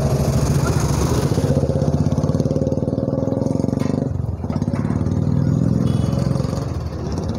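A motorcycle engine idling close by, a steady fast putter that dips briefly about four seconds in.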